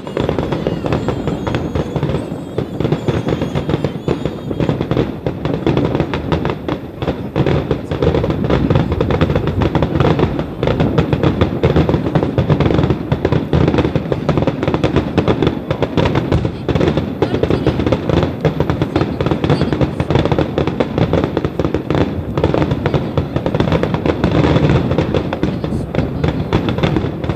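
Aerial fireworks going off in a dense, continuous barrage: many overlapping bangs and crackles with hardly a gap.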